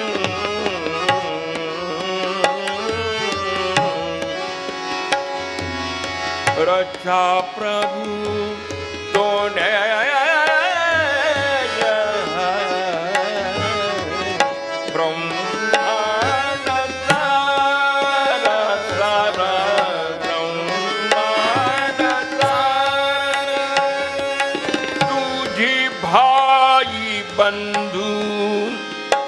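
Hindustani classical vocal: a male singer's gliding, ornamented melodic lines over harmonium, with tabla keeping the rhythm and tanpuras droning underneath.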